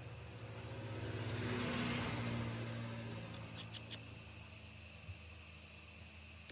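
A vehicle passing, its noise swelling to a peak about two seconds in and then fading, over a steady low hum, with faint insect chirps.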